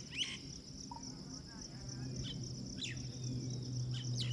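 Steady high-pitched insect buzz, with birds calling in short, repeated, downward-sliding chirps. A low steady hum comes in about two seconds in and grows louder.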